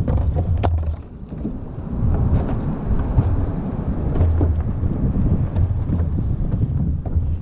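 Wind buffeting the microphone in a steady low rumble, with water moving against the boat's hull and a few small clicks from hands working the hook and line.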